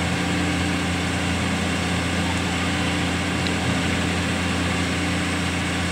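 Komatsu PC210LC crawler excavator's diesel engine running at a steady speed, with no revving.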